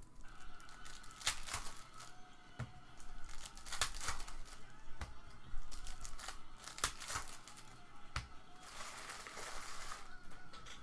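Trading card packs being opened and handled: wrappers crinkling and tearing, with short sharp clicks and snaps of cards. A longer stretch of crinkling and tearing comes about nine seconds in.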